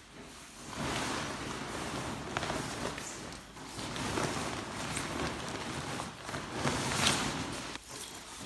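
Sailcloth of a jib rustling and crinkling as it is unrolled and pressed flat on carpet by hands and knees, with one sharper crackle about seven seconds in.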